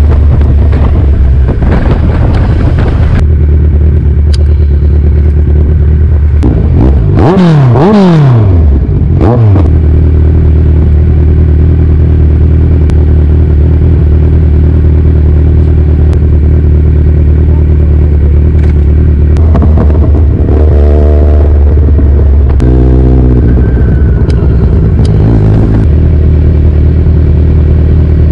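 Motorcycle engines running at a steady low idle, with a sharp fall and rise in engine pitch around seven to nine seconds in and two short throttle blips around twenty and twenty-three seconds in.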